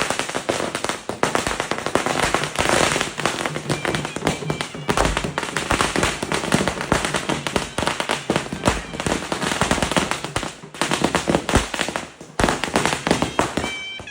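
A long string of firecrackers going off in rapid, dense cracks, broken briefly twice near the end.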